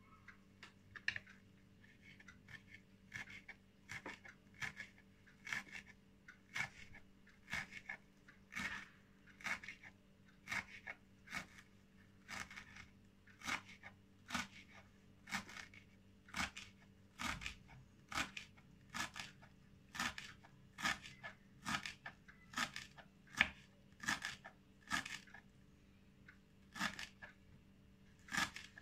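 Kitchen knife chopping fresh dill on a wooden cutting board: a steady run of crisp, crunchy cuts, about one to two a second.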